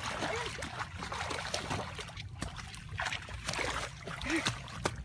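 Irregular splashing and sloshing of shallow muddy water as people wade and grope for fish by hand.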